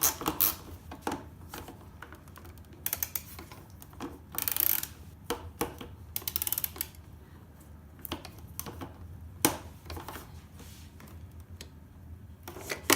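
Screwdriver with a modified tamper-proof bit working screws out of a metal set-top box case: irregular clicks and knocks, with short runs of rapid clicking, over a steady low hum.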